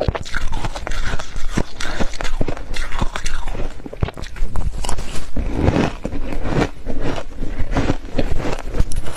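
Close-miked crunching of deep-freezer frost being bitten and chewed, many crisp crunches in quick, irregular succession.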